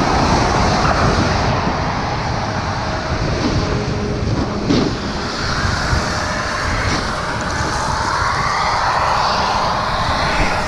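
A steady, loud rushing of wind on the microphone and a snowboard sliding over snow while riding downhill, with a couple of brief knocks along the way.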